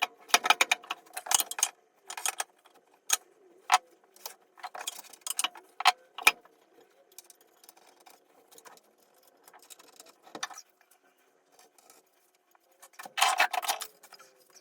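Intermittent clinking and rattling of small hard objects being handled, in bursts with pauses: busiest in the first couple of seconds, sparse through the middle, and busy again near the end.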